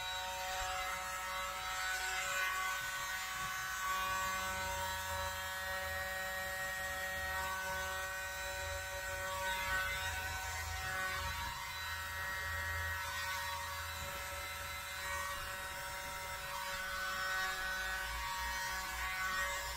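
Tiny handheld corded electric blower, a 'world's smallest leaf blower', running steadily. It gives a high motor whine with a rush of air as it blows wet acrylic paint across the canvas.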